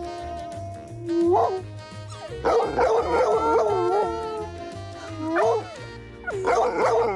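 A dog howling and whining in several drawn-out, wavering calls, the longest in the middle, over background music with a steady beat.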